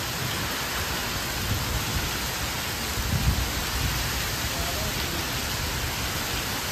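Heavy downpour: dense, steady rain hiss pouring onto trees and a paved terrace, with a brief low thump about three seconds in.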